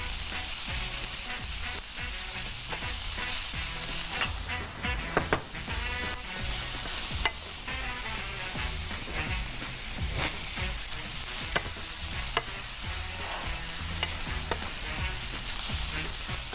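Grated carrots and raisins frying with a spoon of sugar in a frying pan, sizzling steadily while a wooden spatula stirs and scrapes them. Scattered sharp clicks come from the spatula knocking the pan.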